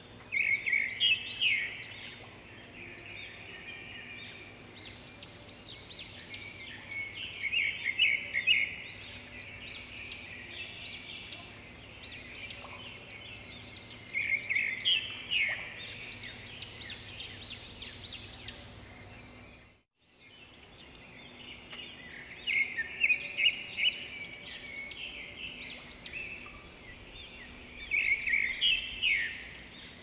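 Cockatiels chirping and calling in bouts of quick, repeated chirps every few seconds, over a faint steady background hum, with a brief break about two-thirds of the way through.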